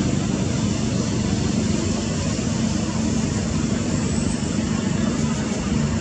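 Steady low rumble of distant road traffic, an even roar with no single vehicle standing out.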